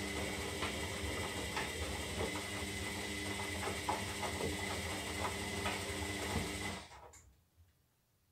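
Zanussi Lindo 300 washing machine running in its synthetic wash cycle: a steady motor hum with a whine and small clicks from the turning drum. About seven seconds in it winds down and stops.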